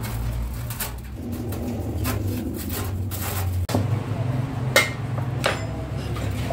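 Sharp metallic clinks as Hino truck gearbox gears and a synchro hub are handled and knocked against each other, the loudest about five seconds in with a short ring, over a steady low hum.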